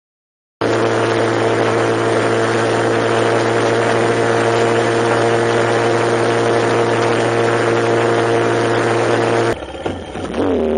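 Vehicle engine running at a steady pitch under a loud rush of noise, starting abruptly just after the start. Near the end it drops off briefly, then comes back with its pitch dipping and rising again, like a gear change.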